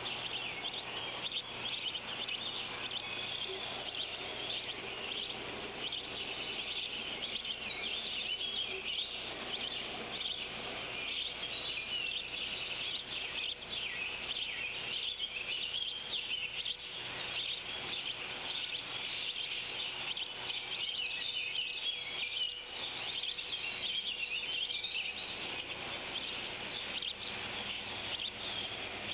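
Chorus of small songbirds around the nest tree: many overlapping high chirps and short songs, continuous and fairly even in level.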